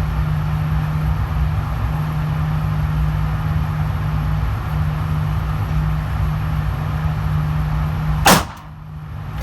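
A single pistol shot about eight seconds in, sharp and loud, over a steady low drone; the level drops for about a second right after the shot.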